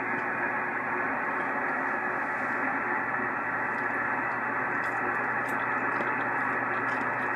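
Amateur radio receiver on 6-meter sideband hissing steadily between transmissions: band noise and static, muffled and thin because the receiver's filter cuts off everything above the voice range, with a faint low hum under it.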